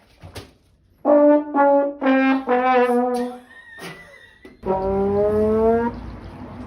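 A brass-like descending "wah-wah-wah-wahhh" sad-trombone phrase: four short notes, each a step lower, then a longer, lower final note held for about a second.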